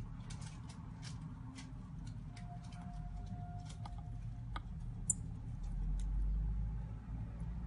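Scattered light clicks and ticks of small repair tools against the parts of a phone, over a steady low hum. One sharper click comes about five seconds in.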